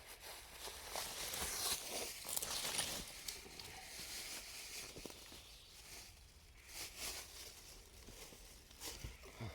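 Rustling, crackling and tearing as chicken of the woods fungus is pulled and broken away from a tree knot, loudest in the first three seconds, then quieter handling with a few small snaps.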